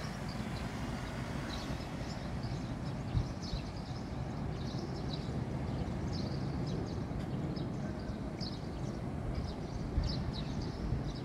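Outdoor urban ambience: a steady low rumble, with small birds chirping briefly now and then.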